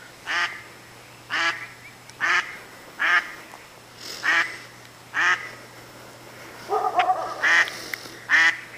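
Mother duck quacking over and over, about one short quack a second, with a quicker run of calls about seven seconds in.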